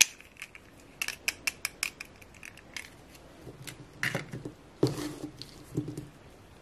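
Hard plastic clicks and taps as small princess dolls' clip-on plastic dresses are pulled off and the dolls are handled and set down on a table. A quick run of clicks comes in the first three seconds, then a few duller knocks about four to six seconds in.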